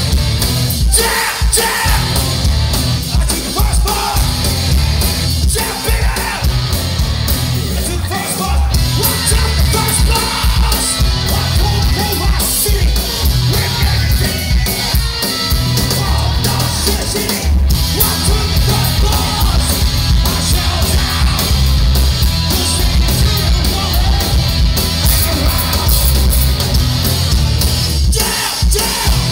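Hardcore punk band playing live: distorted electric guitar, drums and yelled vocals, loud and unbroken.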